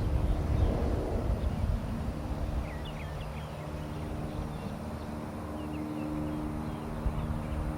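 Steady low mechanical hum with low rumbling that eases after the first couple of seconds, and a few faint bird chirps about two to three seconds in.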